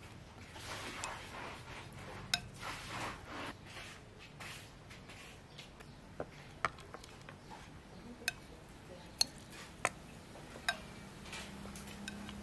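Chopsticks tossing shredded raw carrot, sweet potato, cassava and rice noodles in a glass bowl, a soft rustling for the first few seconds. Then about seven sharp, separate clicks of chopsticks and glass knocking as the mix is tipped into a frying pan.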